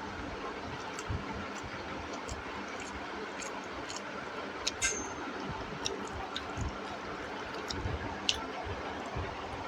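Eating sounds: chewing and wet mouth smacks, with scattered small clicks and a sharper click about five seconds in, over a steady background hiss.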